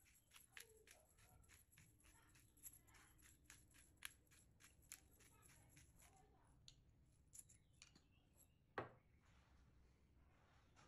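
Hand pepper mill being twisted to grind pepper, a quick run of faint dry clicks about five a second, thinning out after about six seconds; a single louder knock comes near the end.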